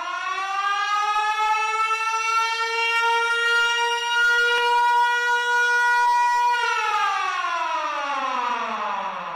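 Warning siren wailing during a flood release: its pitch rises, holds one steady note for several seconds, then falls away and starts to climb again at the end.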